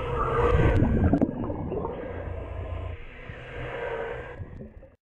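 Remora Solo rotary hull-cleaning brush running against a boat's fouled bottom, heard underwater: a steady motor whine over a low rumble. It fades out near the end.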